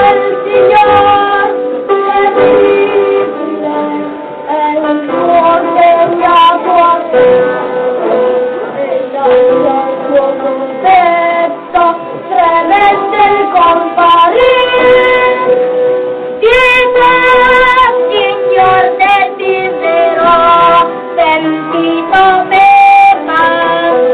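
Children's chorus singing a melody over a steady held note, on an old recording with a narrow, muffled sound.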